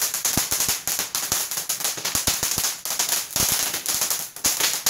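Ground fountain firework throwing sparks, with a dense, rapid crackle of small pops; the crackle thins out briefly about four and a half seconds in, then starts again.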